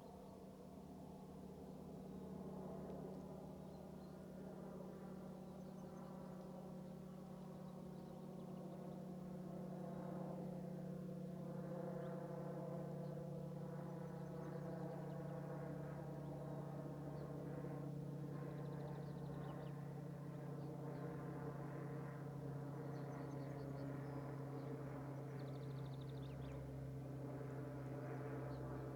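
A distant engine drone, steady and humming, growing slightly louder while its pitch slowly sinks. A few faint bird chirps come through near the end.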